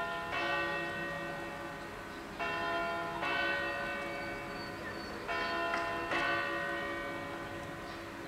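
Church bells ringing: two bells struck alternately in pairs about every three seconds, each strike ringing on with a long, slowly fading tone over a steady hum.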